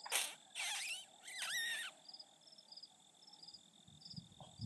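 Crickets chirping steadily in the background, with a short burst and then two brief, high squeals that waver up and down in pitch within the first two seconds.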